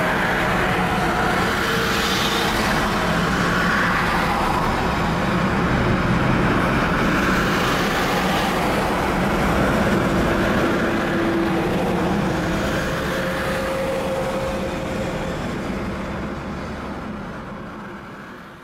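Steady road noise heard from inside a car travelling at highway speed: tyre roar with a low engine hum. It fades out over the last few seconds.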